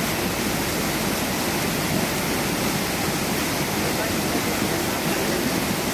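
Muddy floodwater rushing in a steady torrent and pouring over a washed-out bank, the sound of a river in spate after heavy monsoon rain.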